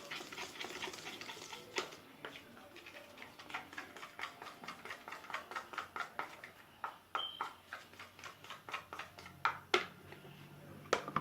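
A utensil stirring slime mixture in a container, clicking against its side about two to three times a second, with two louder knocks near the end.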